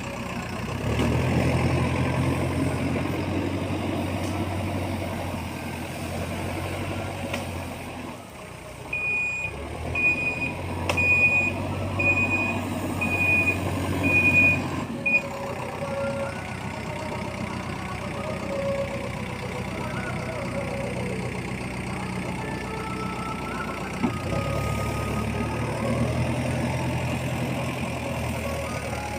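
Diesel engine of a Manitou loader running, its load rising and easing, with the reversing alarm beeping six times in an even series from about nine seconds in.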